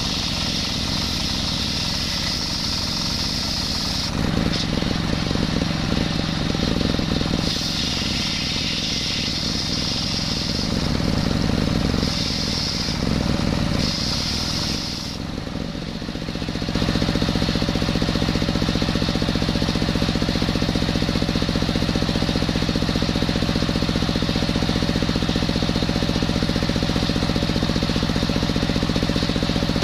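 A diesel engine belt-driving a table circular saw, the blade whining in several stretches as it cuts through coconut timber. About 17 seconds in the cutting stops, and the engine and blade run on steadily without load.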